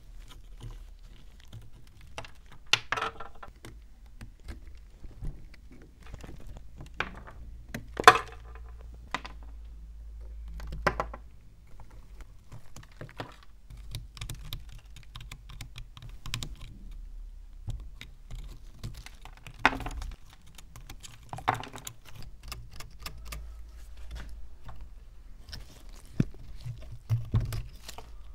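Irregular clicks, taps and scrapes of metal hand tools picking and prying at a heavily rusted, crusted antique meat grinder, with a few louder knocks.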